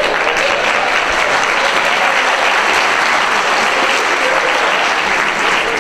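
Theatre audience applauding, a steady, dense clapping.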